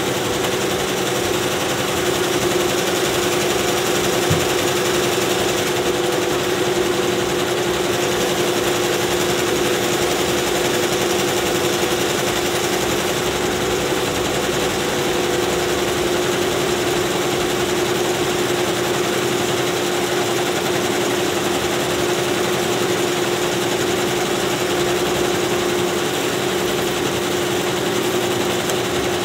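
Several multi-needle commercial embroidery machines running together: a steady, dense mechanical clatter of stitching with a steady hum. One of the tones in the hum drops out about halfway through.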